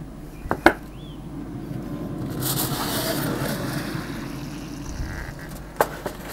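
A foil-covered baking dish taken off a grill's metal grate: a couple of sharp metal clicks, then a scraping, rustling sound for about a second and a half, over a steady low hum. Near the end comes a knock as the dish is set down on a wooden cutting board.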